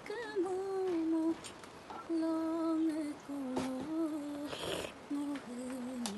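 A female voice humming a slow tune in held, stepping notes. Around the middle come a few clicks and a brief scrape of a metal ladle against a steel bowl as noodles are served out.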